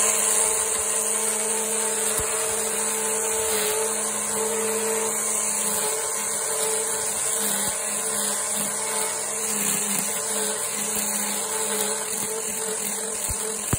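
String trimmer running steadily at full speed, its spinning line cutting grass and weeds; a steady whine.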